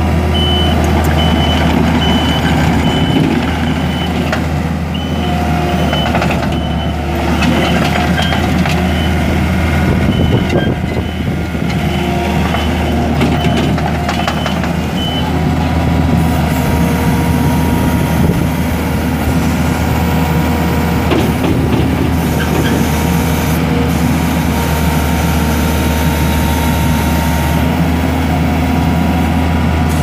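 The Kubota V3800 four-cylinder turbo diesel in a Takeuchi TL250 tracked skid steer, running steadily. Through roughly the first half the machine's backup alarm beeps repeatedly, a sign that it is reversing, and then it stops.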